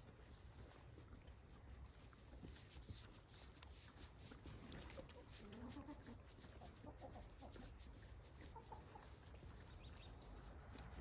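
Faint clucking of chickens, with a steady low rumble underneath.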